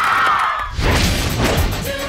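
Movie trailer soundtrack: music under a high, held scream from an excited audience, then a sudden heavy crash-like hit a little under halfway through as the music carries on.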